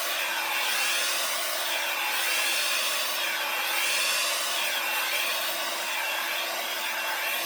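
Hair dryer running on its low setting, blowing wet acrylic paint across a pour. Its steady rushing hiss and motor hum swell and ease every second or so as it is swept back and forth.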